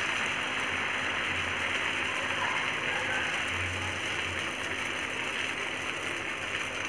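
Steady sizzling hiss of barnyard millet (varai) dosa batter cooking on a hot, oiled tawa.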